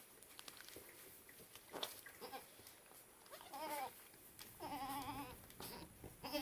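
Goats bleating: three wavering, quavering calls, the second the longest, starting about three seconds in, over faint rustling and light clicks.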